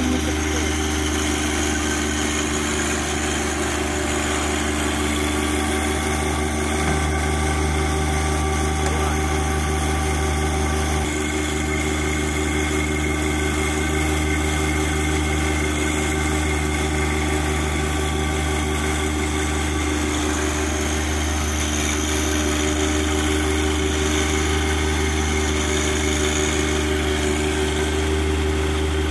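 Compact John Deere loader tractor's engine running steadily while it pushes a floating dock into the pond, its note shifting a couple of times.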